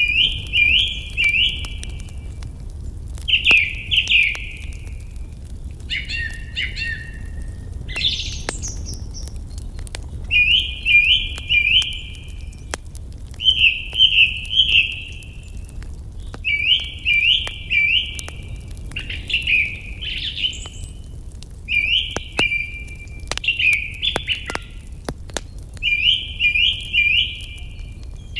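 A songbird sings a short phrase of three or four quick notes over and over, about every three seconds. Sharp crackles and pops of a wood fire are scattered through it, over a steady low rumble.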